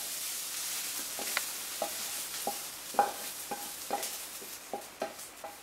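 Browned onions being scraped out of a hot frying pan into a bowl: a utensil knocks and scrapes against the pan in a run of short clicks, about every half second, over a sizzle of hot oil that fades away.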